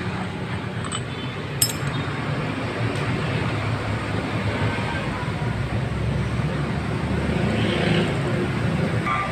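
Steady low rumble of vehicle traffic, with a single sharp metallic clink about a second and a half in as engine parts are handled.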